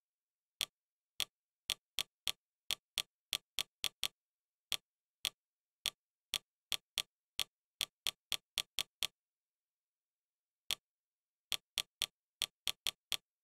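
Fire TV interface navigation clicks: a short, sharp tick each time the selection moves to the next tile. They come in quick runs of about three to four a second, with pauses between and silence around each click.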